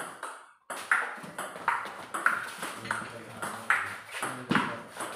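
Table tennis ball being hit back and forth in a doubles rally: a steady run of sharp pocks from the ball on the paddles and the table, roughly one to two a second.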